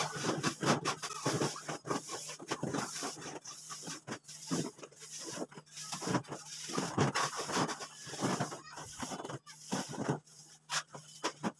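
Wet cement mortar being thrown by hand onto a concrete ceiling as a spatter coat: irregular splats and knocks, many in quick succession, over a faint steady hum.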